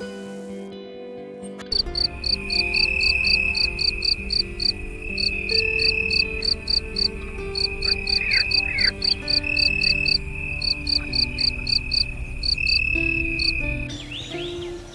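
Crickets chirping in an even rhythm of about four chirps a second, with a steady insect trill behind them, starting a couple of seconds in and stopping shortly before the end. Soft background music runs underneath.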